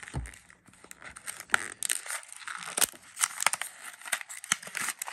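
A small paperboard box being worked open by hand: the end flap and tab scrape and crinkle in a dense run of sharp clicks and rustles, with a soft thud at the very start.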